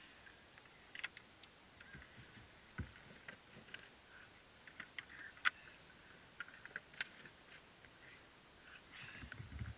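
Glowing wood and charcoal embers in a small steamer-basket fire crackling faintly, with scattered sharp pops at irregular intervals. Near the end come low handling knocks as an aluminium tray is stood beside the fire.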